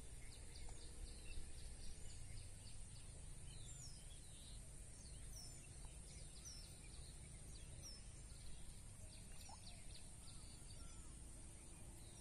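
Faint outdoor ambience: birds chirping in short calls and quick trills over a low rumble and a steady high hiss.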